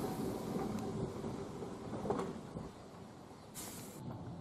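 A vintage electric tram at rest: a steady low background with a couple of light knocks, and a short hiss about three and a half seconds in.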